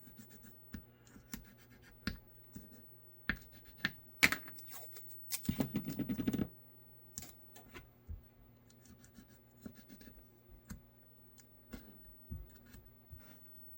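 Adhesive tape being pulled off the roll and pressed down over the holster mold: scattered small taps, rustles and scratches, with a longer tearing pull of about a second just past the middle.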